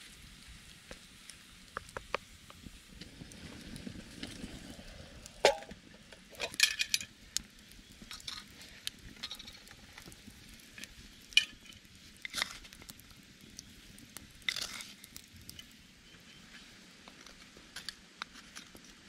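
Metal camp cookware being handled: a utensil clinking, knocking and scraping against a pot in scattered light strikes, with a handful of louder clanks.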